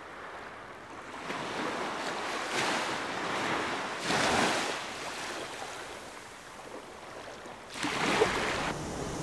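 Sea waves washing in on a shore, rising and falling in about three surges, the loudest about four seconds in.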